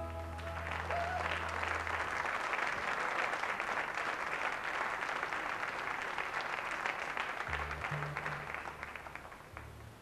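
Studio audience applauding as the band's last chord rings out and dies away over the first two seconds. The applause fades near the end, and a few low bass notes sound toward the close.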